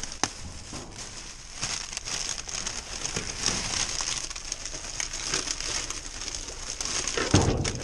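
Clear plastic trash bags and wrapping crinkling and rustling as they are handled and pulled apart, with scattered crackles. A louder thump near the end.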